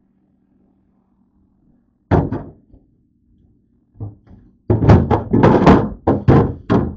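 A plastic tub and other items being handled and set down on refrigerator shelves: a couple of thunks about two seconds in, then a busy run of knocks and thunks in the last two seconds. A faint steady low hum sits under the quiet opening.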